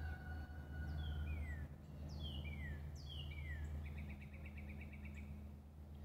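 A bird singing: three sharp down-slurred whistled notes about a second apart, then a fast trill of around a dozen notes a second near the end. A thin steady whistle-like tone runs through the first second and a half, over a steady low hum.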